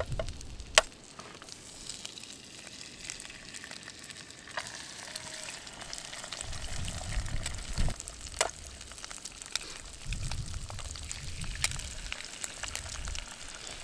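Bacon and eggs frying in a pan over a wood fire: a steady sizzle with a few sharp pops, the loudest about a second in.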